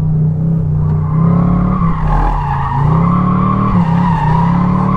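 Chevrolet Camaro SS convertible drifting: its V8 engine runs hard while the rear tyres squeal in a long steady screech that starts about a second in.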